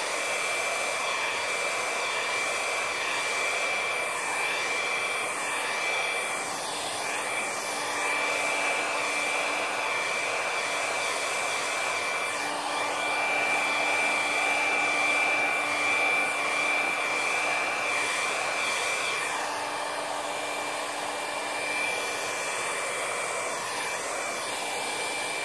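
Handheld hair dryer running steadily, a constant rush of air with a high whine, blowing wet poured acrylic paint outward across the canvas to open it into a bloom.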